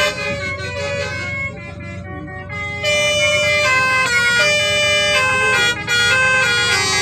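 Indonesian bus 'telolet' musical air horns playing a run of held, reedy notes that change pitch in quick succession, over a low engine rumble. The horns grow louder and fuller about three seconds in.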